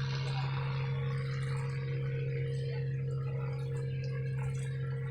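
A steady low hum with fainter steady tones above it, unchanging throughout.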